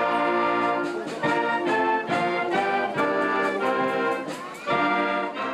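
Brass-led music playing: a run of held chords changing every half second or so.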